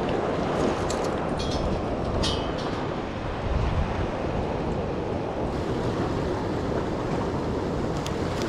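Wind buffeting the microphone over waves washing against jetty rocks: a steady rumbling rush with a stronger gust partway through. A few light clicks come in the first couple of seconds and again near the end.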